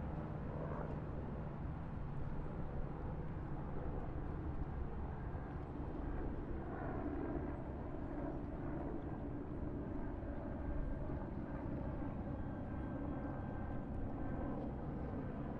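Distant road traffic: a steady low hum of vehicles on a main road, swelling slightly now and then.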